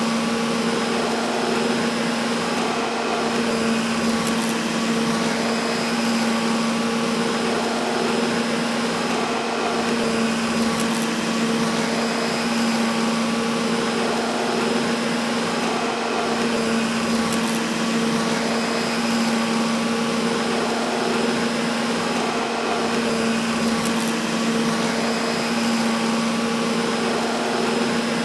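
Vacuum cleaner running steadily, a continuous rush of air with a constant motor hum and whine that never changes in pitch or level.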